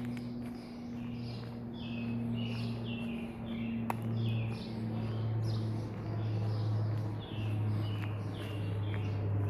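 Small songbirds chirping, a long series of short high chirps at roughly two a second, over a steady low hum.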